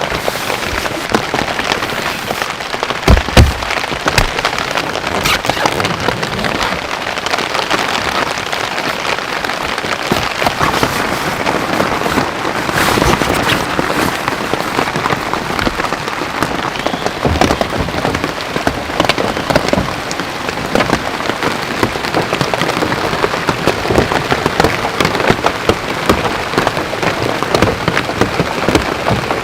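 Heavy rain falling, drops hitting a surface as a dense, steady hiss of fine clicks. About three seconds in there are two loud low thumps.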